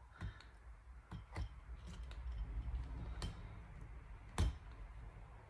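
Scattered small clicks and taps of tools and fingers on a MacBook Air's internals while the Wi-Fi antenna cables are unclipped, over a low handling rumble; the sharpest click comes about four seconds in.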